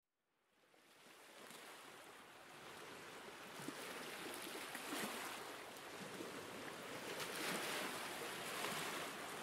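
Soft sea waves washing onto a sandy beach, fading in from silence in the first second and growing slowly, with swells of surf about five and seven and a half seconds in.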